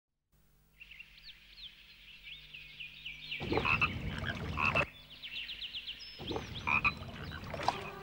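Frogs croaking: two loud, long croaking calls about three and a half and six seconds in, over a steady chorus of short high chirps.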